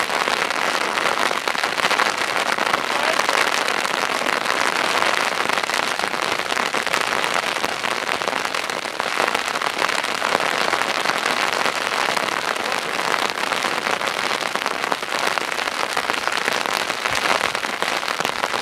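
Steady heavy rain, a dense even patter of drops that does not let up.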